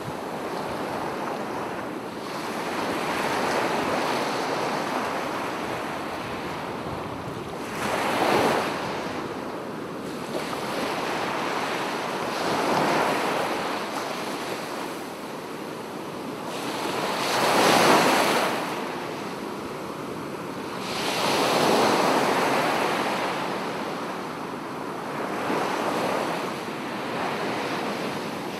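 Small sea waves breaking and washing through the shallows, surging and falling back every four to five seconds, with wind in the background.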